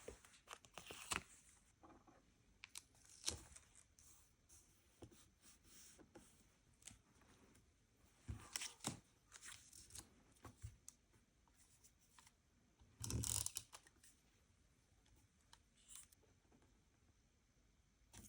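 Paper and stationery being handled for a journal page: soft rustles, scattered small taps and clicks, and one louder rustle about two-thirds of the way through.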